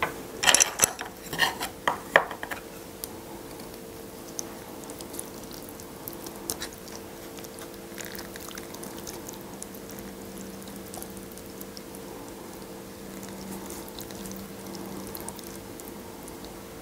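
Chopsticks and a metal fork clinking in a quick run of clicks in the first couple of seconds. Then soft wet stirring and lifting of ramen noodles in a bowl of spicy broth, with scattered faint clinks over a steady low background hum.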